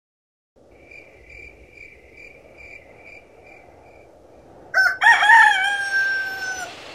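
Crickets chirping in a steady high pulse over a faint hiss, then a rooster crows once about five seconds in: a loud call that ends in a long, slightly falling held note.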